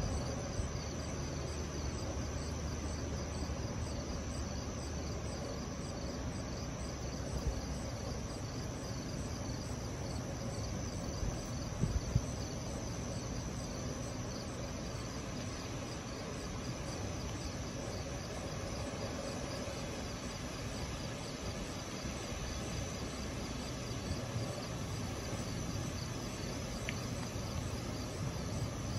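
Night insects chirring steadily in a high pulsing trill over low background noise, with a brief knock about twelve seconds in.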